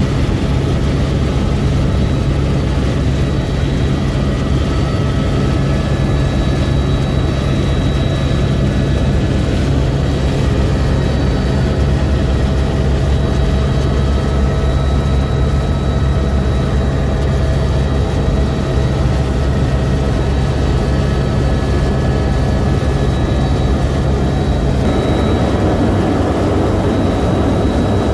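Helicopter in flight, heard from inside the cabin: steady, loud rotor and engine noise with a deep rumble, its tone shifting slightly near the end.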